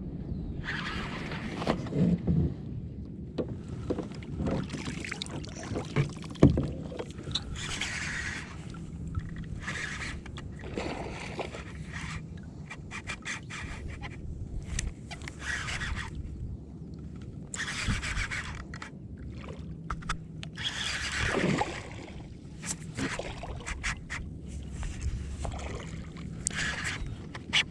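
Sounds of a plastic fishing kayak on the water: irregular swishes of water and scraping along the hull, with scattered knocks, the sharpest about six seconds in.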